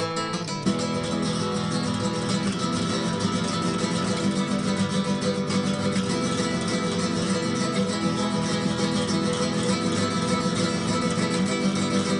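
Background music: acoustic guitar strummed rapidly in a flamenco style, in a dense, steady rhythm that picks up just under a second in.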